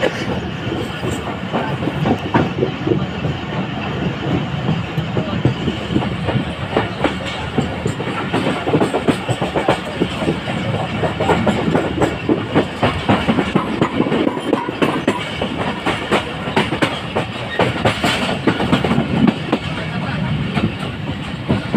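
Passenger train running along the line, heard from aboard: steady rumble and rush of the ride with a rapid, continuous clatter of wheels on the rails.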